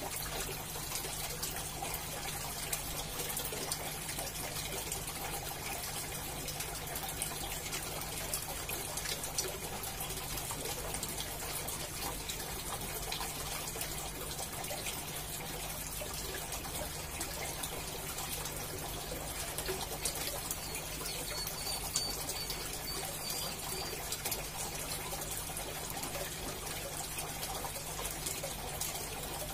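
Aquarium air stone bubbling steadily, with many small bubbles ticking and splashing at the water surface over a steady low hum.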